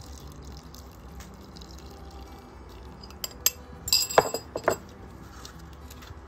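Melted butter poured from a small glass bowl into mashed potatoes, then a few sharp clinks of a metal fork against the glass bowl a little past halfway as the bowl is set down.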